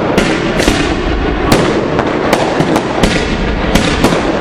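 Fireworks going off in quick succession: about ten sharp bangs at uneven intervals over continuous crackling.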